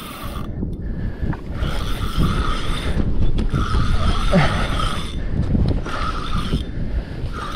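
Spinning reel being cranked in bouts, its gears whirring as line is wound in on a hooked fish, over a low rumble.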